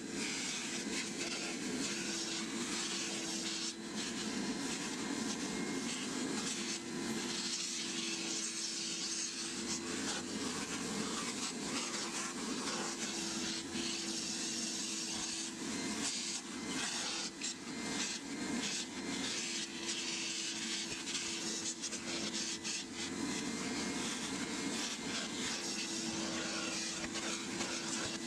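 Carpet extractor wand sucking shampoo water out of car floor carpet: a steady hissing suction with a hum that comes and goes every few seconds as the wand is pushed and pulled across the carpet, with crackly, slurping breaks as water and air are drawn up the hose.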